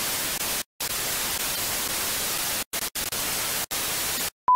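Television static: a steady white-noise hiss broken by several brief dropouts, ending in the steady single-pitch beep of a colour-bar test tone.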